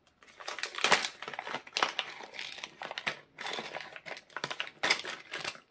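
Plastic packaging crinkling and rustling in irregular bursts as a diamond-painting toolkit is unwrapped by hand.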